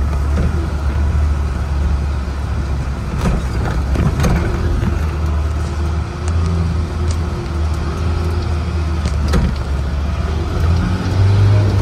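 Mahindra Thar's engine running steadily as the 4x4 drives a rough, muddy jungle dirt track, with a few short knocks and rattles from the vehicle jolting over the ruts.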